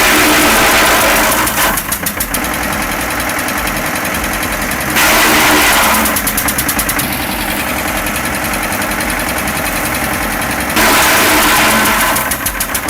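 Engine-driven wood chipper running with a steady rapid beat, rising three times into louder noisy surges of about a second and a half, as branches are chipped.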